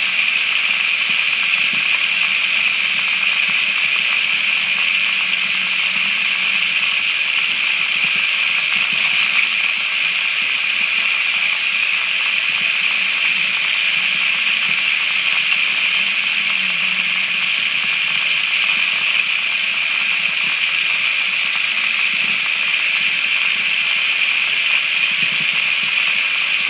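Water running steadily down a pocket sluice loaded with pay dirt and splashing into the tub in a kitchen sink: an even, unbroken hiss.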